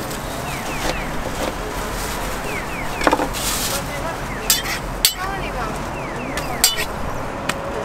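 Metal utensils clicking and scraping at a street crepe stall, a handful of sharp clicks over a steady street-traffic hum.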